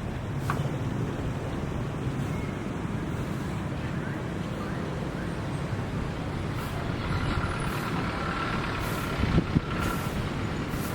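Steady rumble of road vehicles, with a faint thin whine partway through and a couple of short knocks near the end.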